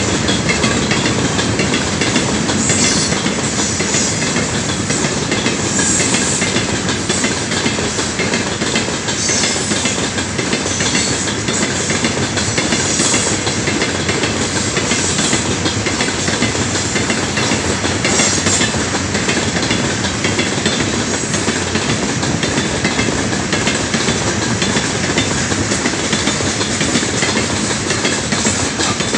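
Heavy loaded freight train of open gondola wagons rolling past close by: a steady, loud rolling noise of steel wheels on the rails, with a recurring clatter every few seconds as wheelsets pass over rail joints.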